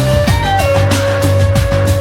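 Background music with a steady beat, a bass line and a long held lead melody note that briefly bends upward.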